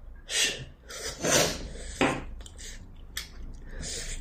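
People eating at a table: chopsticks clicking against bowls and dishes and chewing on stir-fried silkworm pupae, with a few short wordless voice sounds in the first two seconds.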